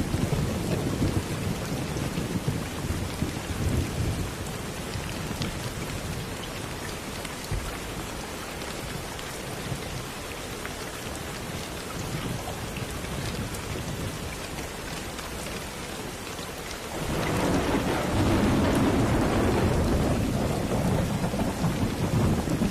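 Steady rain falling with soft rolling thunder. A low rumble dies away over the first few seconds, and a new, louder roll of thunder swells up about 17 seconds in.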